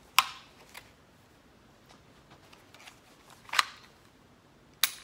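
Handgun being dry-fired with a laser training cartridge during draw practice: a few sharp metallic clicks, three of them loud, from the trigger snapping and the gun being handled.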